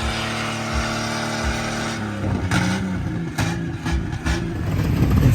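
Car engine revved hard and held at high rpm, steady for about two seconds and then stuttering against the rev limiter.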